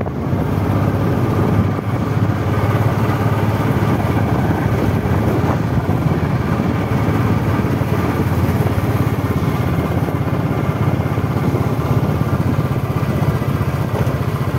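Vehicle engine running steadily under way, heard from on board with road and wind noise.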